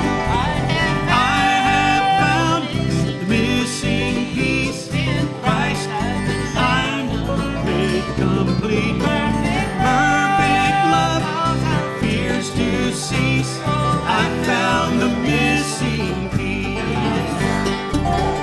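Acoustic bluegrass band playing an instrumental break, with picked guitar, banjo and mandolin over a steady bass.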